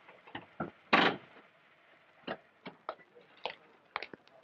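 A car door being opened: a sharp click about a second in, then scattered lighter clicks and knocks.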